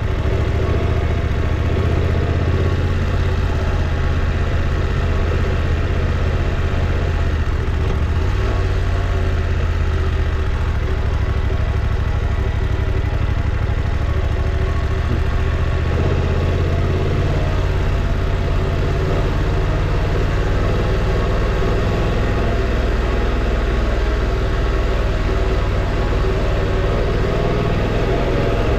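Motorcycle engine running steadily under way, mixed with an even rush of wind and tyre noise. The engine note shifts slightly about halfway through.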